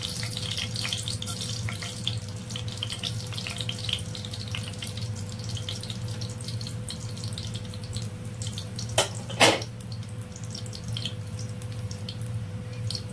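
Fenugreek seeds sizzling and crackling in hot oil in a steel kadai, the crackle thinning out after the first few seconds. There is a steady low hum under it, and two sharp knocks about nine seconds in.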